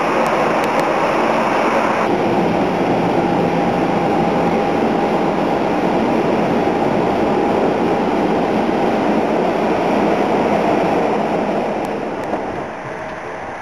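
Jet airliner engines running loud and steady at takeoff power, with a faint whine in the noise, fading away over the last couple of seconds.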